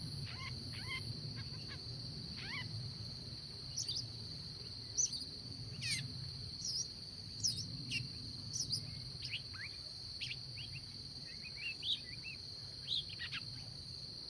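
Several birds giving short, quick chirps and sweeping calls at irregular intervals over a continuous high, steady insect drone, with a faint low rumble beneath.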